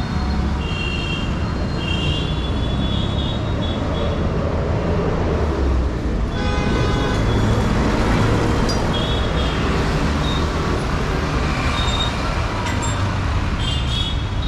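Busy street traffic: a steady rumble of engines, with a horn honking about six seconds in and short, high beeps coming and going.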